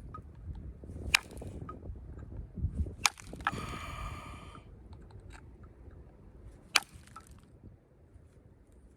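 Flint knapping on weather-damaged stone: three sharp clicks as flakes come off, about a second in, about three seconds in and near seven seconds, over soft handling rustle. A pitched squeak lasting about a second comes just after the second click.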